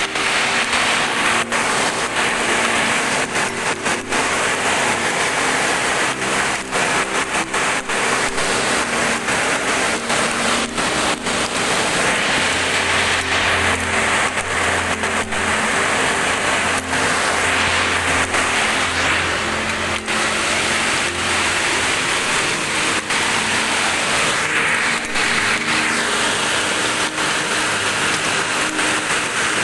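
Heavy hailstorm with rain: a dense, steady hiss of falling rain dotted with many sharp clicks of hailstones striking. A low hum runs under it through the middle stretch.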